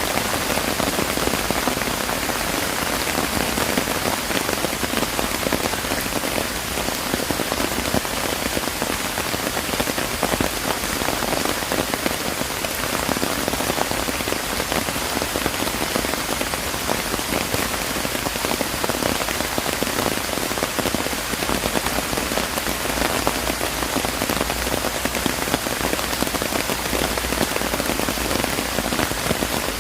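Steady rain falling and pattering on surfaces, a dense even hiss of many drops with no let-up.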